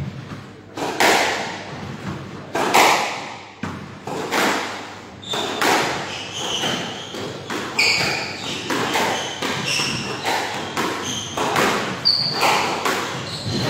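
Squash ball struck by a racket against the court walls: sharp thuds echoing in the enclosed court, strongest and about every second and a half at first. Later come lighter knocks and short high shoe squeaks on the wooden floor.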